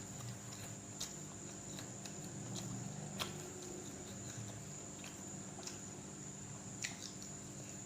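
Close-up eating sounds: soft chewing and mouth noises, with a few sharp clicks about a second in, just after three seconds and near the end, over a steady low hum and a faint high whine.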